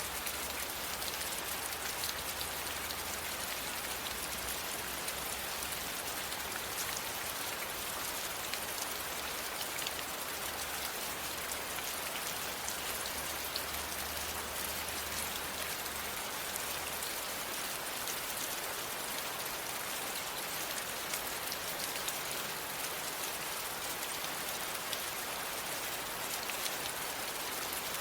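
Steady rain falling, an even hiss dotted with the ticks of individual drops hitting a surface. A faint low rumble under it stops about two-thirds of the way through.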